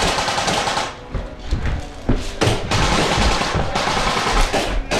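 Airsoft guns firing in the middle of a game, with knocks and rustling of gear close to the microphone and low thumps.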